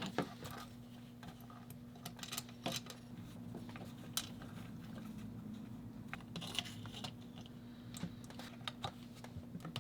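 Faint, scattered small metallic clicks and taps of a bolt and washer being fitted and tightened by hand, over a low steady hum.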